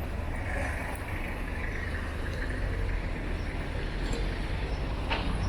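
A motor vehicle passing along the street, a steady low rumble with a swell of tyre hiss, and a couple of sharp clicks near the end.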